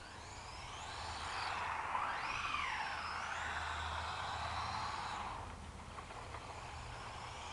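WLToys A959 Vortex electric 4WD RC buggy driving on asphalt: its motor and gears whine, the pitch sweeping up and down with the throttle. The sound grows over the first second or two and fades as the car drives off near the end.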